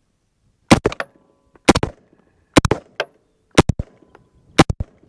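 Sterling Arms R18 .223 semi-automatic rifle firing five shots, about one a second, each followed by a short echo. The rifle cycles every round from the magazine without a stoppage.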